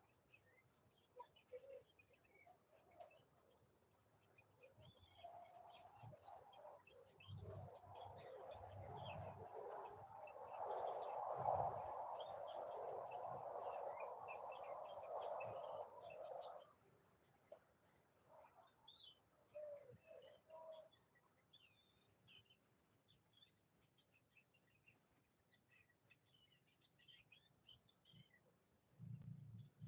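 Faint, steady high-pitched trilling of insects in the forest, with scattered short bird chirps. Some way in, a louder rushing noise swells for about ten seconds, then fades.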